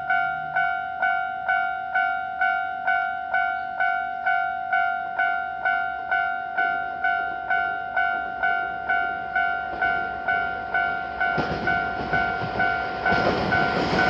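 Japanese railway level-crossing alarm ringing, an electronic two-tone ding repeated about twice a second. A train's rumble comes in about halfway and grows loud near the end as it reaches the crossing.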